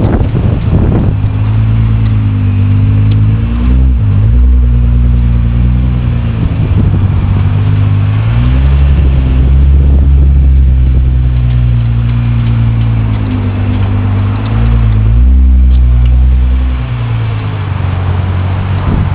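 GT-R car running, a loud steady low drone that dips and shifts in pitch a few times.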